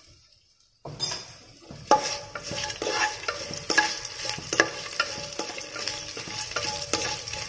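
Shahi jeera, bay leaves, whole spices and green chillies sizzling in hot ghee in a nonstick pot, stirred with a wooden spatula that scrapes and knocks against the pot again and again. The sizzling starts about a second in.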